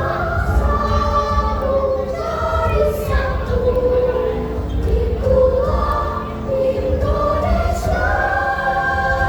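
A choir singing a melody in held notes that step up and down, over a steady low hum.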